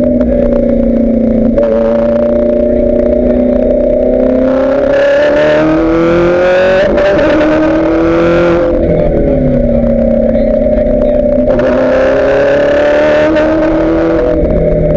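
Ferrari F430 GT race car's V8 engine, heard from inside the cockpit, pulling hard on track. Twice its note climbs steadily under acceleration and then falls abruptly, about halfway through and again near the end.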